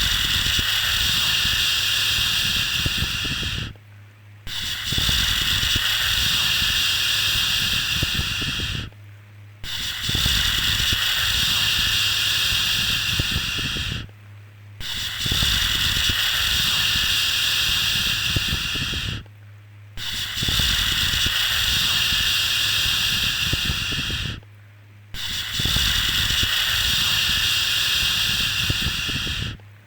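A soothing 'shhh' shushing sound for settling a baby, each shush held about four and a half seconds, then a brief pause before the next, about six times over. A faint low hum runs underneath.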